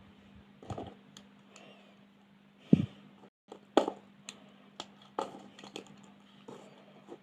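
Light clicks and taps of colouring pens and pencils being handled on paper and a desk, irregularly spaced, with one louder low thump about three seconds in and a steady low hum underneath.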